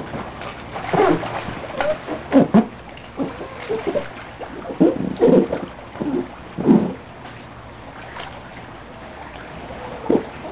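Lawn sprinkler spraying water onto grass, with a run of short, irregular splashes and thumps for the first seven seconds or so, then steadier.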